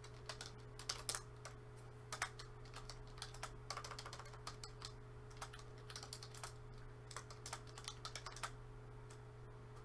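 Faint computer keyboard typing in quick, irregular keystrokes that stop near the end, over a low steady hum.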